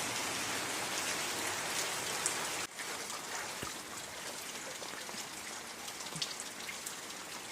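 Rain falling steadily, with scattered drops. About two and a half seconds in the sound drops off sharply, then carries on more quietly.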